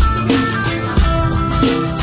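Instrumental passage of a rock song: a drum kit and guitar play a steady beat, with heavy kick-drum hits and cymbals.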